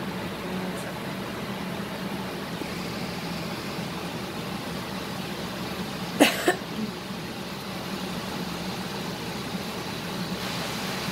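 Steady hum of a kitchen range hood fan. About six seconds in there is a sharp clack, followed by a smaller knock.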